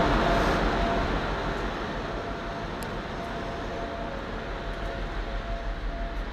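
Steady machinery noise: a low rumble under an even hiss with a faint steady whine, loud at first and settling lower over the first couple of seconds.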